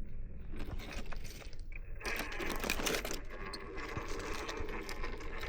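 Small electric motor and gears of a scale RC crawler whirring as it creeps over rock, with crunching, clicking and scraping of tires and body on stone; busier and louder from about two seconds in.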